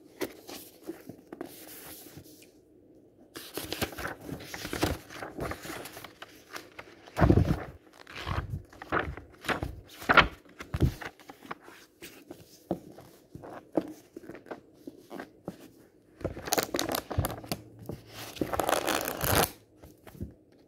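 Pages of a paperback book riffled quickly by hand, in about three bursts of fluttering, rustling paper with sharp knocks and clicks in between.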